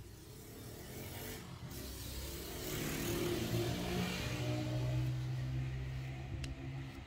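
A motor vehicle passing by: engine hum and a rushing noise that swell to a peak a few seconds in, then fade.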